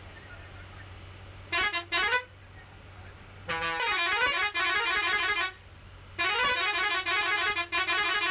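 Bus's multi-tone air horn sounding in three loud spells: a short blast about a second and a half in, a two-second one, then a longer one near the end, its notes changing rapidly. A steady low engine hum runs underneath.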